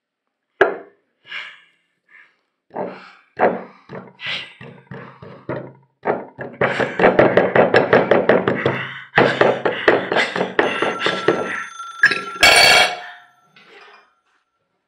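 A metal table utensil stabbed down again and again onto a plate and tabletop: scattered knocks at first, then a fast, dense run of thuds. A loud crash comes near the end.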